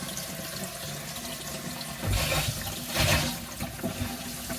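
Water running from a newly installed Moen Graeden bathroom faucet into the sink, a steady rush that swells louder twice, about two and three seconds in.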